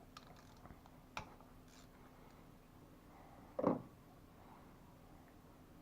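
Faint clicks of a socket wrench working the ignition coil bolts, with a sharp click about a second in and one short louder knock near the two-thirds mark.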